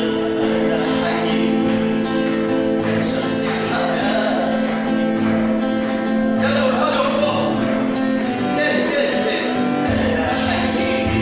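Music: an Arabic Christian hymn, sung over instrumental accompaniment with held chords.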